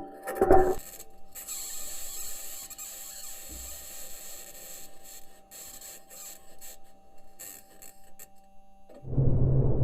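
Audio recorded by NASA's Perseverance rover on Mars: a high, rasping, scraping hiss with squeals and irregular rattling ticks. About nine seconds in it gives way to a much louder low rumble.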